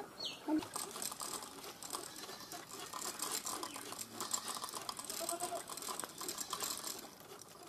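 Fast, irregular light clicking and rattling from a wooden handloom being worked by hand.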